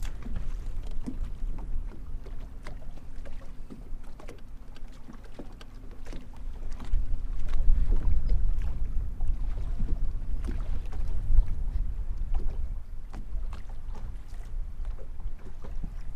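Wind rumbling on the microphone, strongest in the middle, with water lapping and ticking against the bass boat's hull. A faint steady hum runs under it for much of the time.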